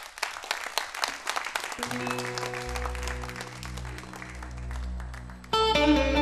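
Audience applauding with rapid claps while held instrumental tones and a low bass drone come in about two seconds in. About five and a half seconds in, a plucked string instrument starts playing loudly, opening the accompaniment to a Turkish folk uzun hava.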